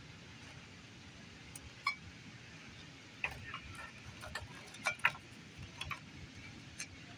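A scatter of light clicks and taps, some with a brief ring, over a low steady room hum; most of the clicks fall in the middle, with one about two seconds in and one near the end.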